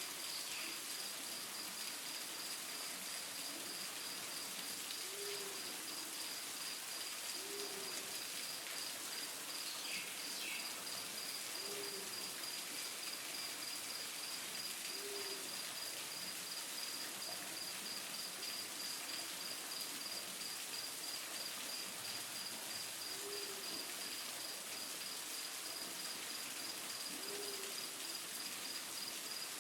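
Steady rush of a waterfall, with a continuous high insect trill. A short, low animal call repeats every few seconds, and a bird chirps briefly about ten seconds in.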